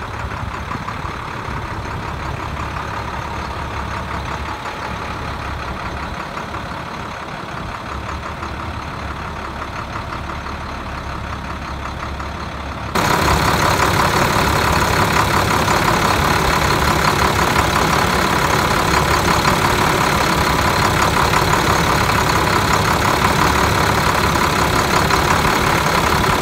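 International 7400 truck's diesel engine idling steadily. About halfway through it becomes markedly louder and closer, heard from the open engine bay.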